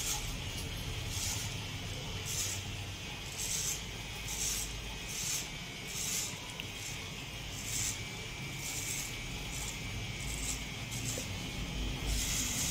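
Electric hair clipper running steadily, with a crackling hiss about once a second as the blade passes through the hair.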